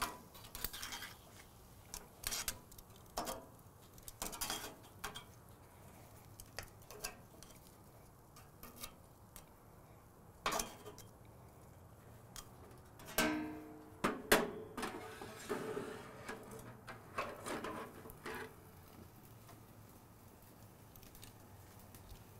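Steel tongs clicking and clanking against an Otto Wilde O.F.B. broiler's grate and stainless drip tray as steaks are turned. The clicks are scattered, with two louder clanks about ten and thirteen seconds in, the second ringing briefly, over a low steady hum.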